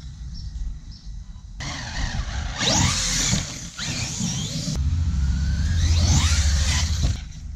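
Hobao MTX RC monster truck on 8S power, its electric motor whining up in pitch again and again under hard throttle while the tyres scrabble and spin on loose dirt. It is quieter for about the first second and a half.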